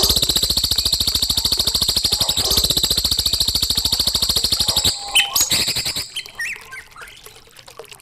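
A songbird's loud, rapid trill of evenly repeated high notes, lasting about five seconds, followed by a few short separate calls.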